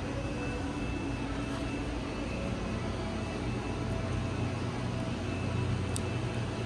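A steady low mechanical hum with a faint high steady tone over it, and a brief sharp click about six seconds in.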